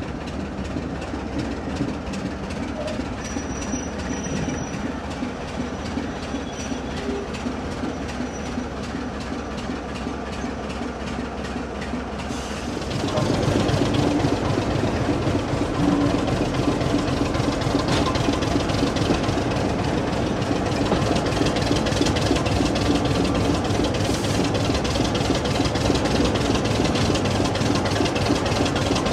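Train running on the rails: a steady rumble and rattle of wheels and coaches that becomes clearly louder about halfway through.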